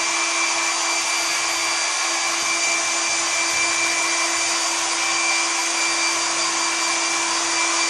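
Philips HP8142 hand-held hair dryer running at a steady setting: an even rush of blown air over a constant low motor hum, with a faint high whine.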